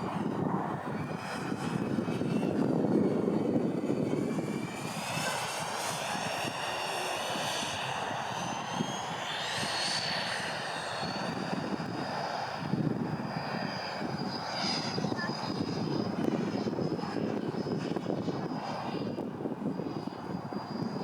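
Twin 80 mm nine-blade electric ducted fans of a Freewing MiG-29 model jet whining in flight, the pitch climbing over several seconds about a third of the way in, then holding a steady high whine. Wind rumbles on the microphone.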